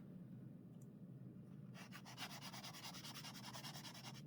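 Pastel stick rubbed back and forth on paper in quick, even strokes: a faint, scratchy rubbing that starts about two seconds in.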